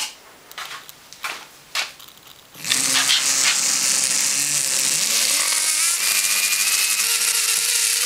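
A few faint clicks, then about two and a half seconds in a small electric toothbrush motor, overvolted from a rectified variac, starts suddenly and runs loud and fast with a noisy buzzing whine.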